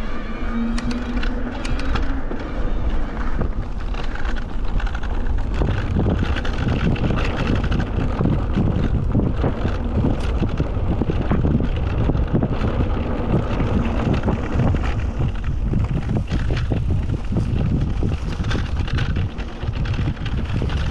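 Wind buffeting the camera microphone as a mountain bike rolls down a grassy dirt track, a heavy fluctuating rumble with tyre noise. A few sharp clicks and rattles come in the first couple of seconds.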